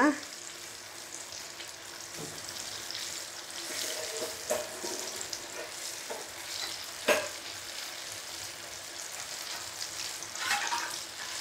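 Eggplant pieces deep-frying in hot oil in a wok: a steady sizzle and bubbling as they are turned over, with a couple of sharp clicks of the spatula against the pan, one about four and a half seconds in and one about seven seconds in.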